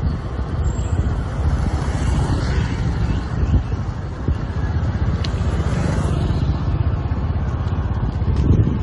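Motorbike riding along a road: a steady engine and road noise with wind rumbling on the microphone.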